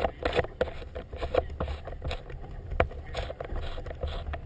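Wind buffeting the microphone with a steady low rumble, broken by irregular sharp snaps and flutters from a red flag flapping beside the camera.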